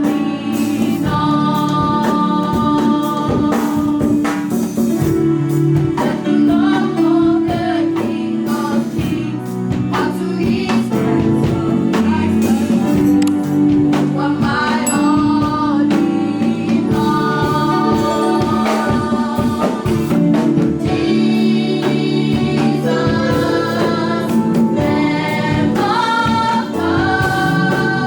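Church choir singing a gospel worship song with live band accompaniment and a steady beat.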